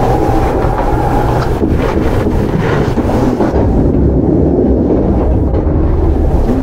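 Kintetsu 8810-series field-chopper electric train heard from on board while running, with a steady, loud rumble of wheels on rail and a few short clicks.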